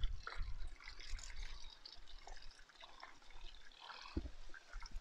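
Faint trickling water in a shallow pool, with a single soft knock about four seconds in.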